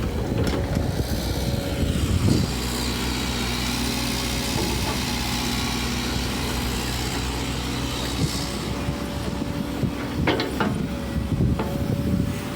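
Tracked excavator working: its engine runs steadily with a constant whine. A hiss rises over several seconds in the middle, and a few sharp knocks come near the end.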